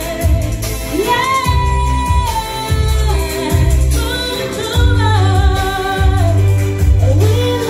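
A woman singing a gliding melody into a microphone, amplified over backing music with a low bass line.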